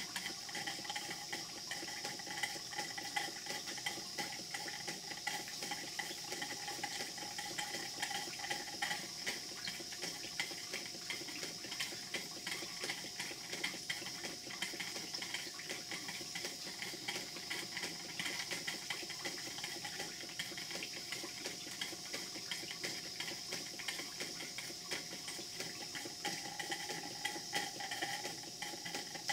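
Two live-steam model engines, a Cyclope-type hypocycloidal engine and a Vulcan beam engine, running steadily under steam: a fast stream of small ticks and exhaust puffs over a continuous steam hiss.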